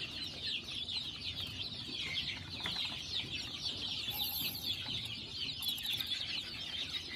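A brood of young chicks peeping continuously: many short, high, falling cheeps overlapping without a break.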